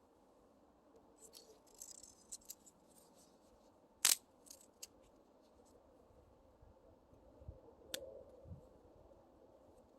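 Scattered small clicks and rustles, with one sharp loud snap about four seconds in and a second sharper click near eight seconds.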